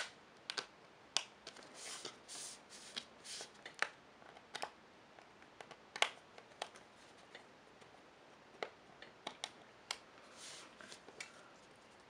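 Small screwdriver turning tiny screws into a phone's plastic back frame: faint scattered clicks and short scratchy rasps as the bit works in the screw heads, with the plastic frame being handled.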